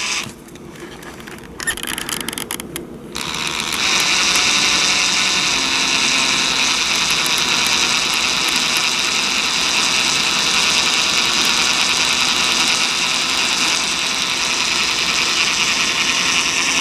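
Cordless drill turning slowly in reverse, driving a Grabit micro screw extractor into a stripped servo horn screw to back it out. There are a few clicks over the first three seconds, then the drill runs steadily. The extractor is biting and the screw head is starting to turn.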